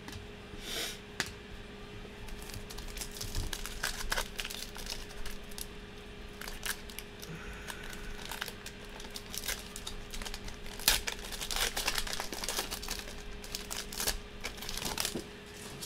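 Foil trading-card pack wrapper being torn open and crinkled by hand: a run of irregular quick crackles and rustles, busiest in the last few seconds.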